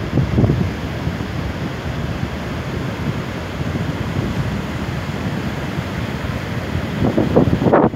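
Ocean surf breaking and washing up a flat sandy beach, mixed with wind buffeting the microphone; a stronger gust comes near the end.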